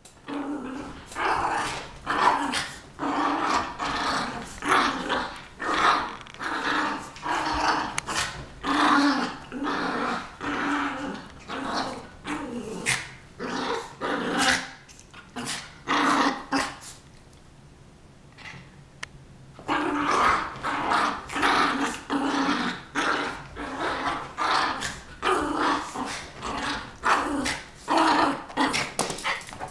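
Two small poodles play-fighting, growling and barking at each other in quick repeated bursts, with a lull of a couple of seconds a little past the middle.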